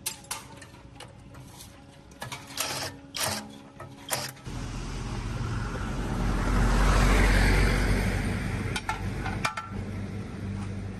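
Metal clinks and knocks, then from about four seconds a machine runs, swelling in loudness toward the middle and easing off near the end.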